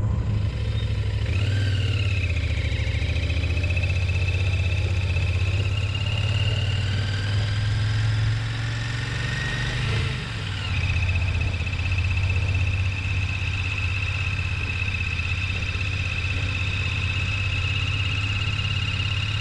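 Royal Enfield motorcycle engine running steadily while riding, with a steady high-pitched whine over the low engine drone; the sound dips briefly about ten seconds in.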